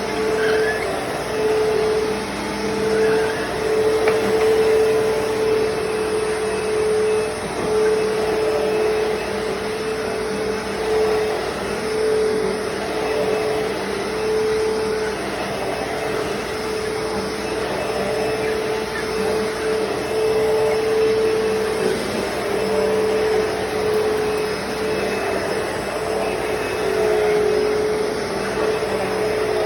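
Hoover Deluxe Elite Rewind upright vacuum cleaner running: a steady motor whine over the rush of airflow, its loudness rising and falling slightly.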